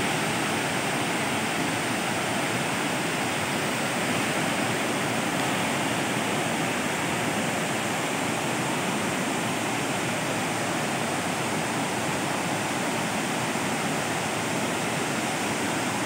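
Waterfall pouring and cascading over stepped rock ledges: a steady, even rush of falling water.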